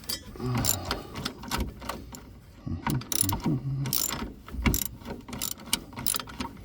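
Hand ratchet wrench clicking in spurts as a shock absorber mounting bolt is tightened by hand, with a short lull about two seconds in.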